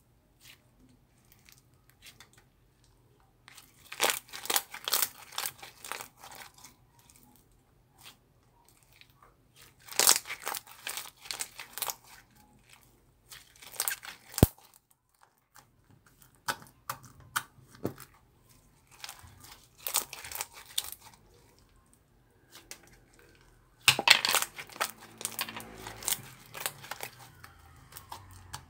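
Slime being squeezed and stretched by hand, crackling and popping in bursts of sharp clicks every few seconds, with quieter stretches in between.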